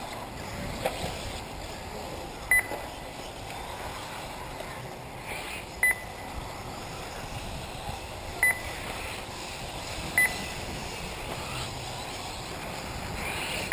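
Short, high-pitched electronic beeps from an RC race lap-timing system, four spread unevenly a few seconds apart with a fifth at the very end, each marking a 1/8 electric buggy crossing the timing loop. A steady hiss of outdoor track noise runs underneath.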